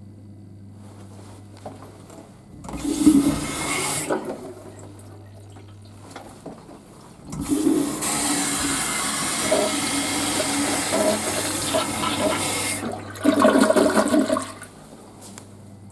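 Toilet flushing: a short rush of water about three seconds in, then a longer flush lasting about five seconds that ends in a louder surge of water near the end.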